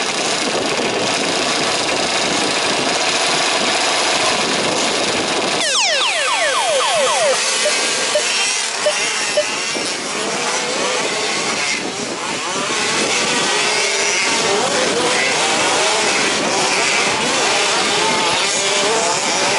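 A pack of 1/5-scale two-stroke petrol RC trucks racing, their small engines revving together in a dense, buzzing drone. A sharply falling whine cuts through about six seconds in.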